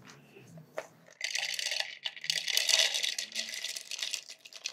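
Skinned raw peanuts pouring from a plate into a hand blender's plastic chopper bowl: a dense clatter of nuts hitting the plastic, starting about a second in after a single knock.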